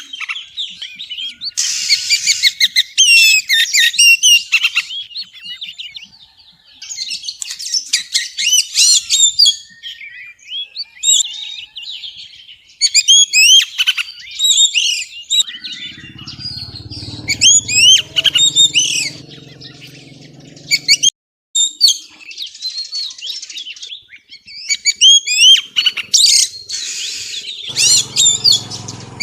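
Oriental magpie-robin singing a fast, continuous run of varied whistles and chattering notes, presented as a female's 'xùy' song used to stir a male to sing. A low droning noise sits under the song for several seconds past the middle and again near the end, and the sound cuts out briefly just after the drone stops.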